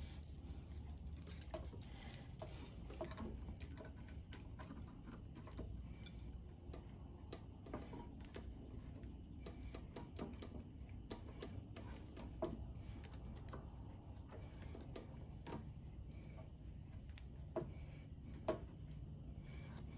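Faint, scattered light clicks and small metal taps, with a few sharper ones near the end: hand work on a Briggs & Stratton mower engine, its ignition coil loosened and nudged while the air gap is set with feeler gauge blades.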